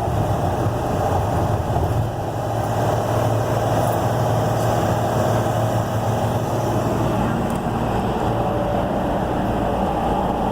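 Ford 6.8-litre Triton V10 engine of a motorhome running steadily while the vehicle is driven.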